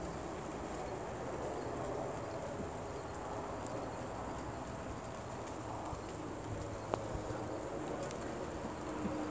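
A steady, high-pitched chorus of night insects, with one sharp knock about seven seconds in.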